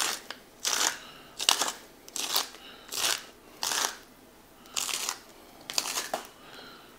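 Hand-twisted salt grinder grinding salt crystals, a crunchy rasp with each twist, repeated about every three-quarters of a second, nine or ten turns in all.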